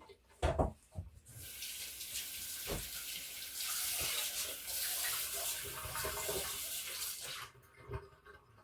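Kitchen faucet running into a sink for about six seconds, then shut off; a couple of short knocks come just before and during the flow.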